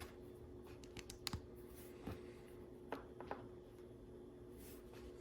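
LEGO plastic bricks and pieces being handled and pressed together, giving a few sharp, faint clicks scattered through the first few seconds over a steady low hum.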